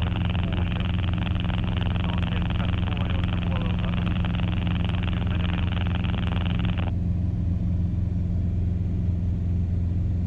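Motorglider's engine droning steadily in the cockpit. Over it, a radio channel's hiss and garbled transmission cuts off abruptly about seven seconds in.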